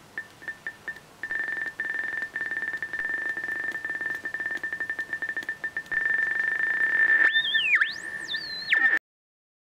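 Homemade light-to-frequency converter synthesizer (TSL230 light sensor driving Atari Punk Console-type oscillators) sounding a high steady tone. The tone stutters in short beeps at first, then holds steady over a fast clicking flutter and grows louder. Near the end its pitch sweeps up high, dips and comes back as the light reaching the sensor changes, then it cuts off suddenly.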